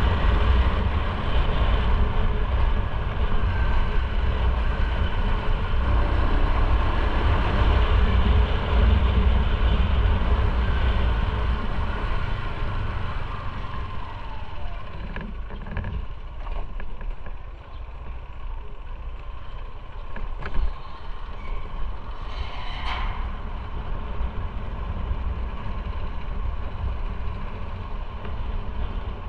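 Motorcycle being ridden: a steady low engine rumble with road and wind noise, louder for the first half and easing off around the middle. A brief higher-pitched sound cuts through about three-quarters of the way in.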